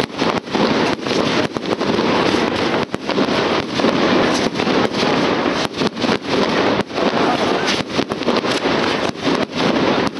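Fireworks going off in a dense, continuous crackling barrage with many sharp cracks.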